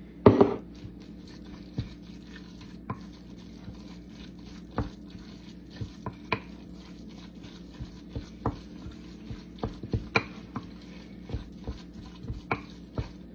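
A wooden spoon stirring and mashing a thick sardine-and-mayonnaise mixture in a glass bowl, with scattered taps and clicks of the spoon against the glass. A single louder knock comes right at the start.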